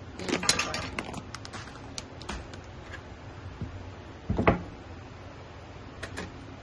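Seedling tray being pulled across and handled on wire shelving: a quick clatter of knocks in the first second, a few scattered clicks, and one louder thump about four and a half seconds in.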